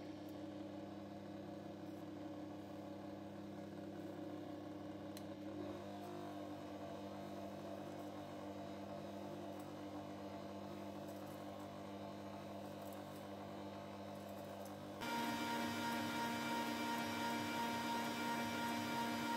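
Electric kitchen mixer motor running steadily at low speed, whisking egg whites into meringue as sugar is added. About 15 seconds in it steps up to a higher, louder whine.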